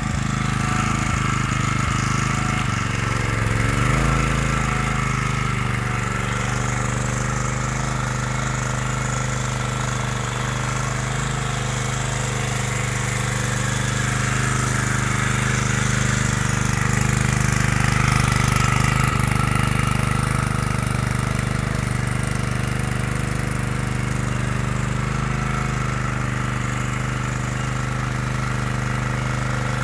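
Senci SC1250E-I portable petrol generator running steadily, its engine holding an even note, with a brief wobble in pitch about four seconds in.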